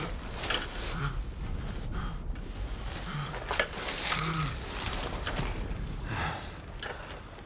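A wounded man grunting and breathing heavily as he crawls over loose beach pebbles, with stones clicking and shifting under his hands.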